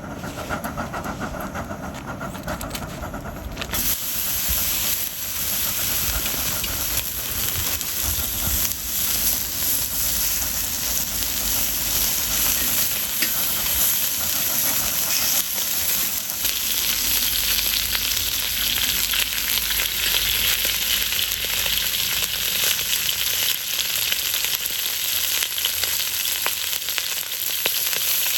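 Food sizzling and frying in a hot pan, a dense crackling hiss that starts abruptly about four seconds in and carries on steadily. Before it, a steady lower rushing sound.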